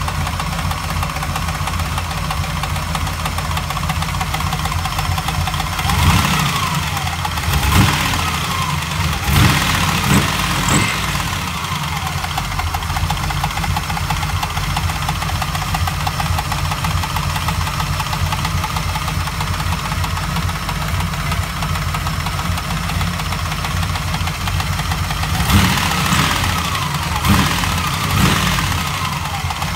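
GM LT1 5.7-litre V8 idling with a steady knock from the front of the engine, loudest near the Optispark distributor and water pump; its cause is unknown to the owner. A few brief revs come partway through and again near the end, each settling back to idle.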